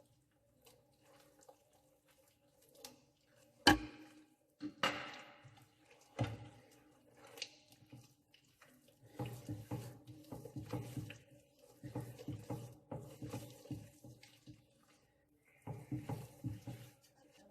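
A few sharp knocks, then runs of quick, irregular strokes as a utensil beats egg yolks into a wet butter, sugar and oil mixture in a mixing bowl.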